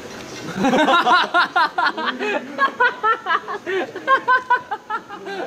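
Young men laughing hard: a long run of quick, high laughing bursts that starts about half a second in, with more than one voice at once.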